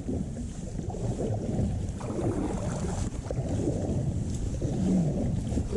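Wind rumbling on the microphone over water moving around a kayak on the river.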